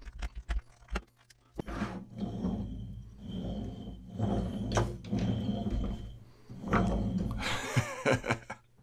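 Small wooden toy car on wooden wheels with peg axles being rolled across a plastic cutting mat, making a continuous rolling rumble. A few light taps and clicks come first, as it is handled and set down.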